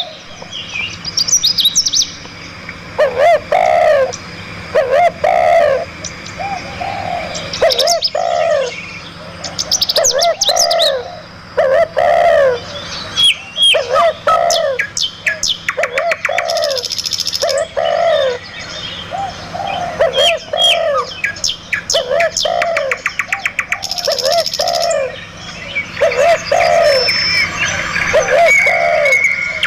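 Several wild birds calling and singing together: a low call repeats about once a second, with higher chirps and short fast trills over it.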